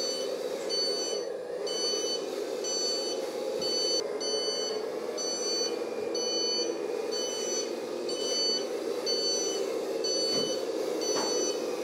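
Reversing beeper of an RC model IVECO 8x8 truck's sound module, beeping at an even rate of about three beeps every two seconds while the truck drives backward. Under it runs a steady hum from the truck.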